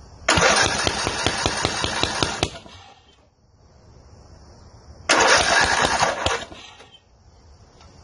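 Riding lawn mower engine cranked by its starter in two bursts of about two seconds each, with a short pause between, turning over rapidly but not catching after carb cleaner has been sprayed into the intake. It blows back out through the air cleaner opening while cranking.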